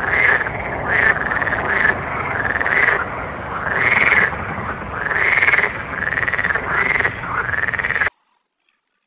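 Frog croaking: a run of repeated calls, each an arching note that rises and falls, about one a second, over a steady noisy background. It cuts off suddenly about eight seconds in.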